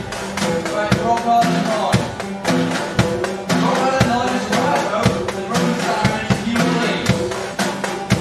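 Acoustic skiffle band playing live, with double bass and a snare drum played with sticks over a steady beat.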